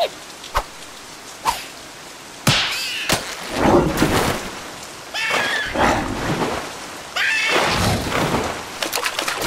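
Steady rain, with a few sharp drips near the start. From about two and a half seconds in come several louder swells of rushing storm noise.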